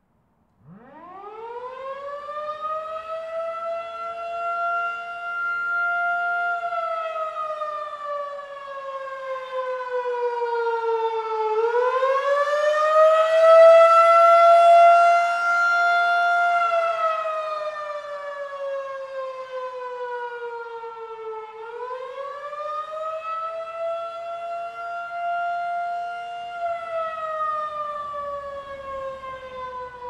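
Federal Signal 2001-DC rotating outdoor warning siren sounding the attack signal. It winds up from silence about half a second in, holds its tone, then slowly winds down and winds up again about every ten seconds. The loudness swells and fades as the horn turns.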